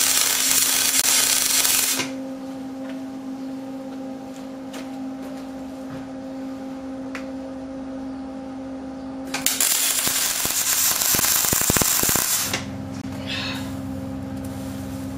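MIG welder arc sizzling and crackling in two short welds of about two to three seconds each, the second starting about nine seconds in, joining a cast-iron winch drum to a steel plate. A steady low hum fills the pauses between them.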